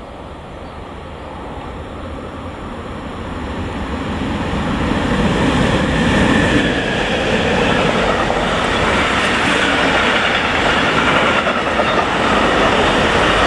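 Freight train hauled by an electric locomotive passing close by on the main line. The sound grows louder over the first few seconds as the locomotive nears, then holds steady and loud as the long line of intermodal container wagons rolls past on the rails.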